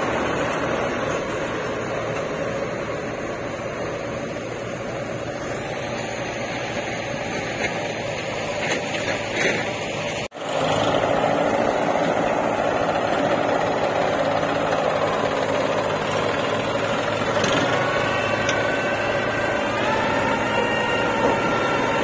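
Diesel engines of a John Deere 5045 D tractor and a JCB 3DX backhoe loader running steadily. The sound breaks off for an instant about ten seconds in, and near the end an engine note climbs as the backhoe's digging arm works.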